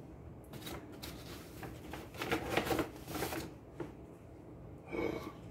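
Brown paper grocery bag rustling and crinkling in several short bursts as items are lifted out of it, loudest about two to three seconds in.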